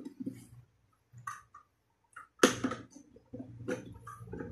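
Plastic toilet-cistern fittings clicking and knocking against the hollow plastic tank as they are handled and fitted, with one sharper knock about halfway through.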